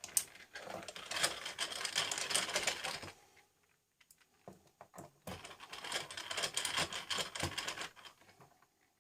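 Screwdriver backing a case screw out of the Toshiba LX830-11D's back panel: a rapid clicking rasp in two runs of about three seconds each, with a short pause between them.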